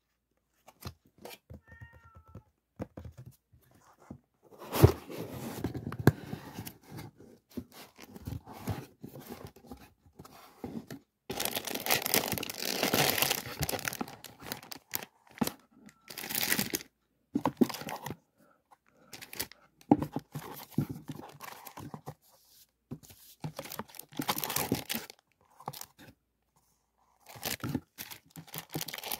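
Cardboard box flaps and plastic stationery packaging being handled: rustling and crinkling in irregular bursts, with a sharp knock about five seconds in and a longer, louder stretch of crinkling plastic near the middle.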